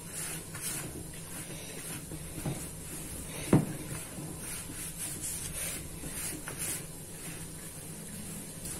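Gloved hands rubbing and kneading crumbly flour-and-ghee sablé dough in a plastic bowl: soft, repeated scrunching and rustling. A single sharp knock comes about three and a half seconds in, over a low steady hum.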